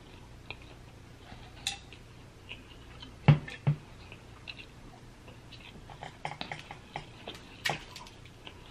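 Dungeness crab shell being picked and cracked apart by hand: scattered small clicks and cracks, busier in the second half, with two dull knocks a little past three seconds in.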